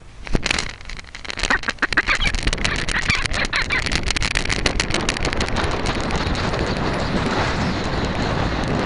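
Ducks quacking in a quick run of short calls. After about five seconds this gives way to a steady rush of wind noise on the microphone of a camera riding on a flying peregrine falcon's back.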